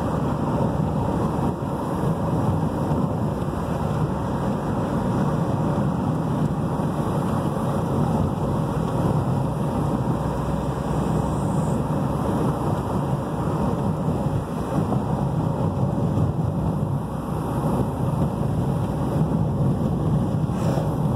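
Steady low rumble of a car driving, with engine and tyre noise on rough, patched asphalt heard from inside the cabin.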